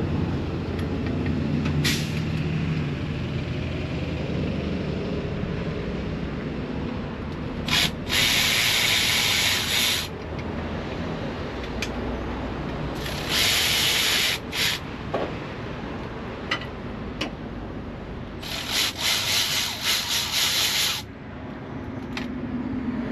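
A power tool run in three short bursts, each a couple of seconds long, the last one stuttering on and off, while the bolts of an AC compressor bracket are being undone.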